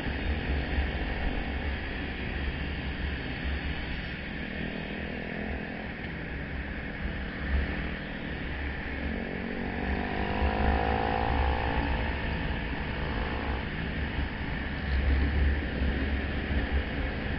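Onboard sound of a motorcycle riding in traffic: engine and road noise under a gusting low wind rumble on the microphone. About ten seconds in, a pitched engine note rises and holds for around three seconds before fading back into the road noise.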